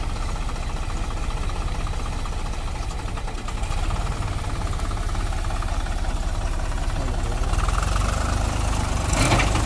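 Diesel engine of a green 50 hp Deutz-Fahr tractor running steadily under load as it drives through deep mud and water, with a low, even throb that gets a little louder about three and a half seconds in.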